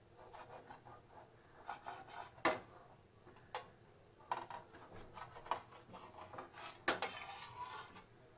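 Kitchen knife sawing through a soft bread sandwich on a stainless steel plate. The blade scrapes the bread and rubs against the metal plate, with two sharper clinks, one about two and a half seconds in and one near the end.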